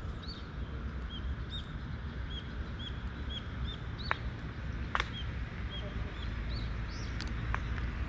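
A bird repeatedly giving short high chirps, about two a second, over a low outdoor rumble. Two sharp clicks come about four and five seconds in.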